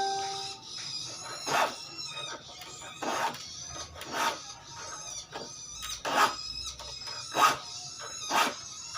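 Hand file rasping across the teeth of a handsaw to sharpen it, in short strokes about once a second, with a high squeal on some strokes.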